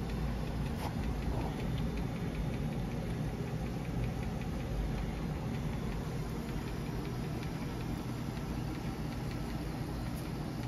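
Steady low hum of the machine's motor or pump running, with a couple of faint clicks in the first two seconds.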